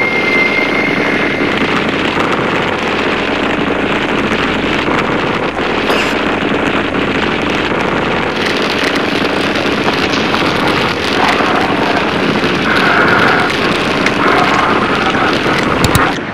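Loud, steady engine drone of an aircraft sound effect. A sharp crack comes just before the end.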